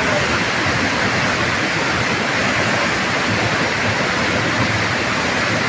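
A large waterfall in heavy flow, close by: a loud, steady rush of falling water.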